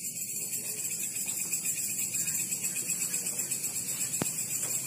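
Night insects, crickets, trilling steadily in a high-pitched chorus, with one sharp click about four seconds in.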